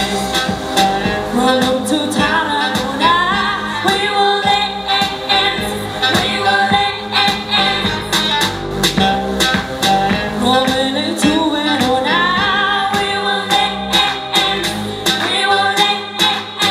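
Woman singing a pop song into a handheld microphone over loud backing music with a steady beat.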